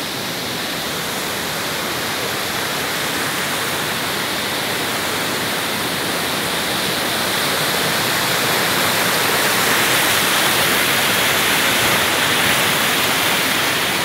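River water rushing over rocks in white-water rapids: a steady, unbroken rush that grows a little louder partway through.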